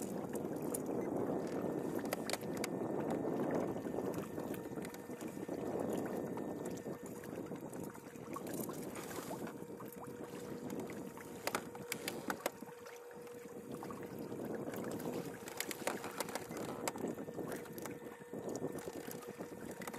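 Sea water sloshing and lapping against a fishing kayak's hull, swelling and fading, with a faint steady hum underneath and scattered short clicks and knocks from handling gear and the fish.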